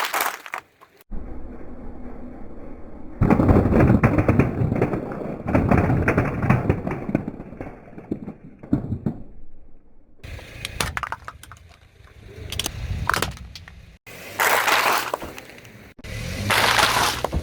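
A car tyre rolling slowly over objects and crushing them, with dense crackling and crunching and a low rumble. Several short crushes follow one another with abrupt cuts between them.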